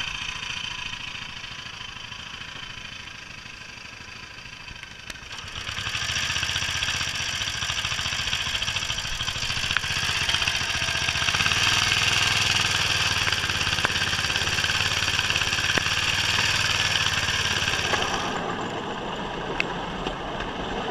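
Small stationary engine on a bamboo train's platform idling, then running up louder at about five seconds and staying loud as the train gets under way. It eases off a little near the end.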